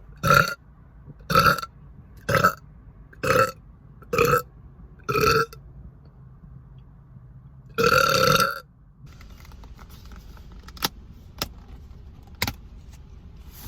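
A woman burping: six short, loud burps about a second apart, then one longer burp about eight seconds in. Three sharp clicks follow near the end.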